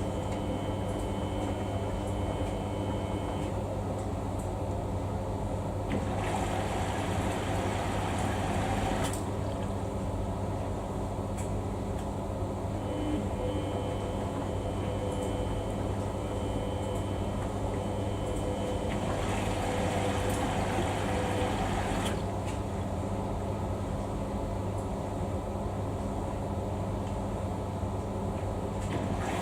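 Samsung washing machine running mid-wash: a steady motor hum with a high whine that comes and goes as the drum turns. Twice, for about three seconds each, a louder rush of water joins it.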